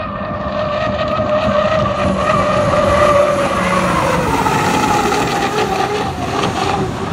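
H1 Unlimited hydroplane's turbine engine whining at full speed over a rush of noise as the boat runs past. The whine drops in pitch from about four seconds in as the boat goes by.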